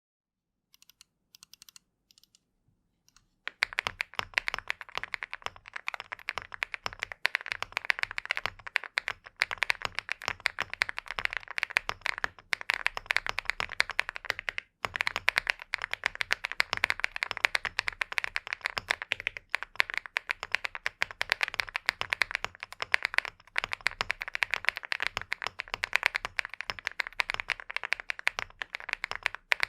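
INKY 75 mechanical keyboard being typed on fast and continuously, a dense run of clacking keystrokes. It starts about three and a half seconds in, after a few faint clicks.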